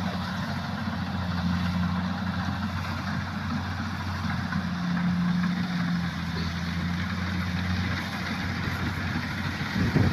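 Kubota rice combine harvester running steadily with an even engine hum and mechanical clatter, with a short louder thump near the end.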